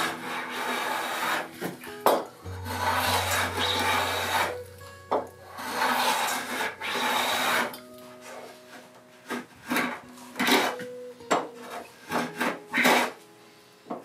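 Small hand plane shaving the edge of a hardwood slab desktop. Three long strokes come first, then a run of short, quick strokes as the corner is shaped.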